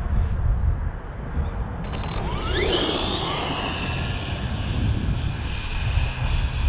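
Arrma Vorteks 3S RC truck's brushless motor whining up in pitch as it accelerates hard about two and a half seconds in, then holding a steady high whine at speed. A short high beep comes just before, and heavy wind buffets the microphone throughout.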